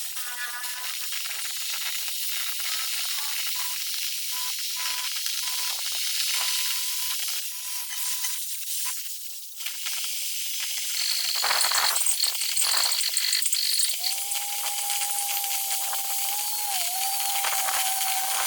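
Electric arc welding: a steady crackling hiss from the arc. A steady tone joins about fourteen seconds in.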